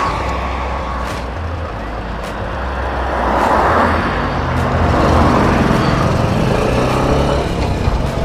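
Single-cylinder Bajaj motorcycle engine running under way, with wind rushing over the microphone. Wind and engine grow louder about three seconds in as the bike picks up speed.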